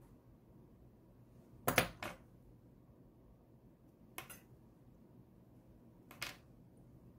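Short metallic clicks from orthodontic pliers and wire cutters being handled while bending a 0.8 mm lingual spring wire: a loud double click about two seconds in, then single clicks about four and six seconds in.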